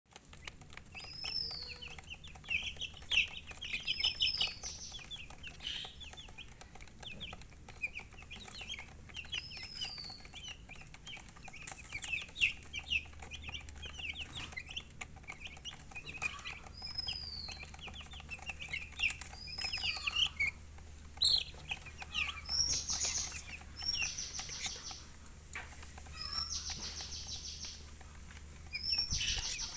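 Baby chicks chirping continuously, many short high peeps overlapping with arched rising-and-falling calls, along with chicken clucking.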